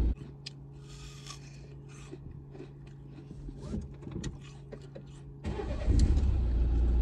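Deep, steady rumble like a moving vehicle cuts out abruptly at the start. A quiet stretch follows with a steady low hum and scattered small clicks. The loud rumble comes back abruptly after about five and a half seconds.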